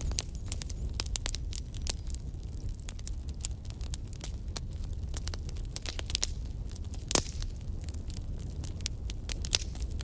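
Wood logs burning in a fireplace: a steady low rumble of flames under frequent sharp crackles and snaps, with a louder pop about seven seconds in and another near the end.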